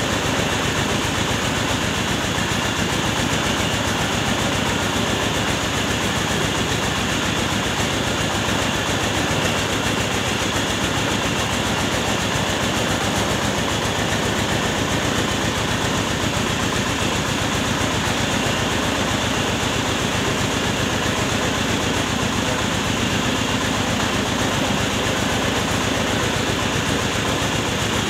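Trailer-mounted mobile rice mill running steadily: its engine drives the husker and polisher, giving a dense, even mechanical din that does not change.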